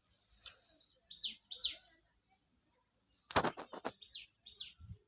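Bird chirping in short, quickly falling high notes, a few at a time, with a quick rattle of about half a dozen sharp knocks a little past the middle.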